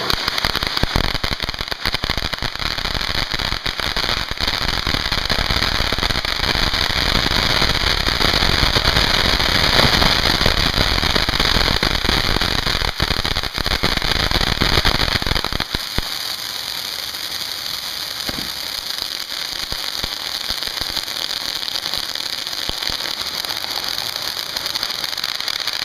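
Eleven TNT Star Voyager ground fountains burning together: a dense hiss and crackle of spraying sparks, loudest in the middle, that suddenly thins to a lighter, steadier hiss about sixteen seconds in.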